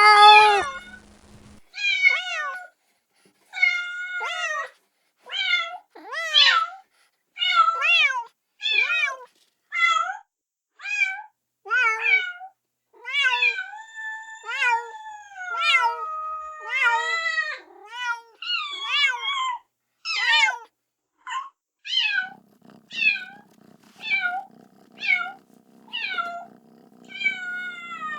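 Kitten meowing over and over, about one short, high-pitched meow a second, with one longer drawn-out meow about halfway through: a kitten crying for its mother.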